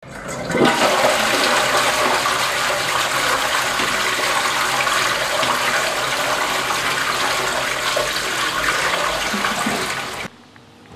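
Toilet flushing: a steady rush of swirling water in the bowl that begins within the first second and cuts off suddenly near the end.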